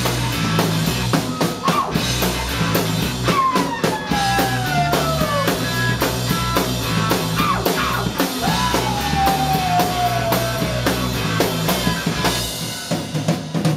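Rock band playing live: a drum kit drives a steady beat under electric guitars. Twice, a long tone slides down in pitch over the band.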